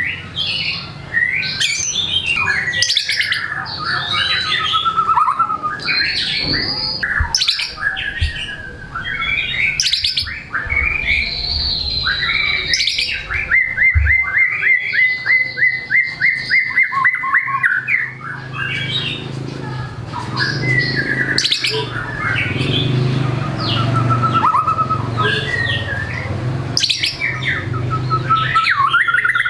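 White-rumped shama (murai batu) singing without pause in full song, running through a varied string of whistles, chatters and borrowed phrases. About halfway through there is a long run of quickly repeated notes.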